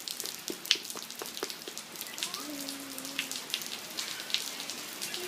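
Light rain pattering and dripping as scattered, irregular drops, tapering off after a shower, with a brief faint voice about two and a half seconds in.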